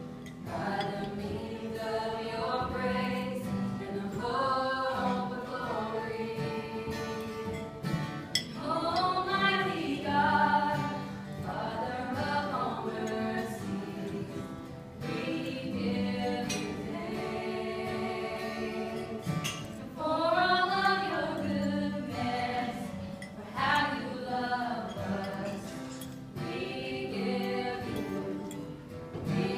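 Live gospel song sung by a small group of voices with acoustic guitar accompaniment.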